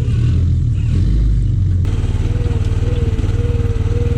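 Kubota skid steer's diesel engine running steadily at high revs. About two seconds in, a steady whine joins it.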